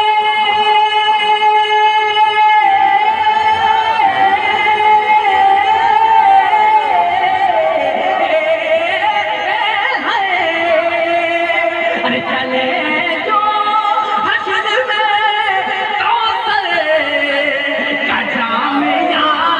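A man singing a naat in a high voice, holding one long note for a couple of seconds, then drawing it out in slow, gliding melodic runs that sink lower toward the end.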